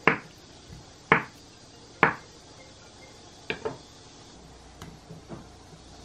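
Kitchen knife cutting down through soft tofu and striking a wooden cutting board: three sharp knocks about a second apart, then a quick pair of knocks and a few fainter taps.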